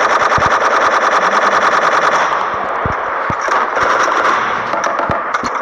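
Machine-gun fire sound effect: a rapid, even burst for about two seconds, then thinning into a less regular rattle of shots.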